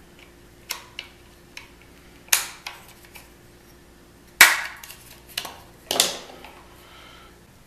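Loc-Line plastic hose fitting being snapped onto its ball joint with assembly pliers: a string of sharp plastic clicks and snaps, the loudest about four and a half seconds in.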